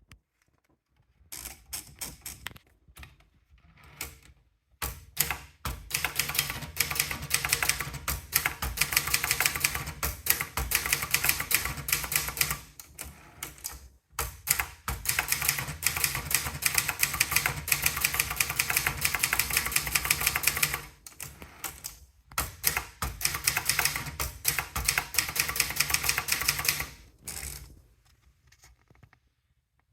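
Brother Deluxe 220 typewriter being typed on in long, fast runs of keystrokes with a few short pauses between them. The opening keystrokes are softer and more scattered.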